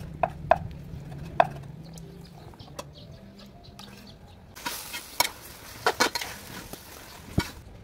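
Cleaver chopping beef on a wooden cutting board: a few sharp strikes in the first second and a half. Later comes a stretch of sizzling hiss with loud clatters of a utensil against the wok as beef and greens are stir-fried.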